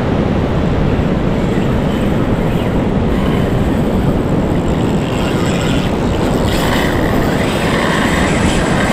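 Loud, steady wind buffeting the microphone on the shore, with breaking surf underneath.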